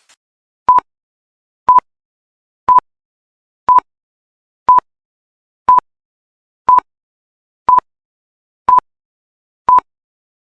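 Workout interval timer beeping: ten short beeps of the same pitch, one per second, in otherwise silence, counting down the pause between exercises.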